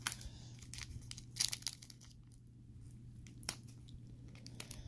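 Trading-card pack wrapper crinkling and rustling in several short crackles as the pack is pulled from the box and handled. The loudest comes about a second and a half in.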